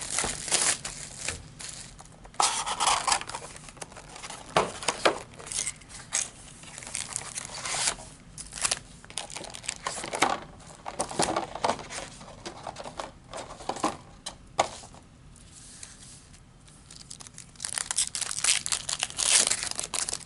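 Plastic shrink-wrap tearing and crinkling as it is stripped off a trading card box, then foil card packs rustling as they are handled, in irregular rips and crackles with a lull about three-quarters of the way through.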